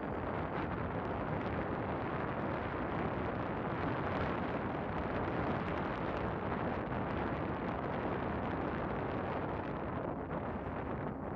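Strong gusty wind buffeting the microphone: a steady rushing roar with no clear sound from the slowly rolling cars.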